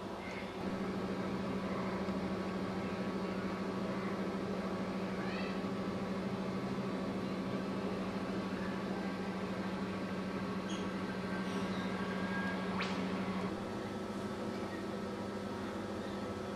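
A steady low hum that sets in just under a second in and cuts off about three seconds before the end, with a few faint high bird chirps and a single sharp click near the end of the hum.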